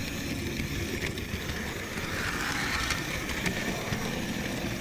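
Model railway train running along the track with the microphone riding aboard: a steady rumble of wheels and motor on the rails, with a few faint clicks and a brief swell in the running noise about halfway through.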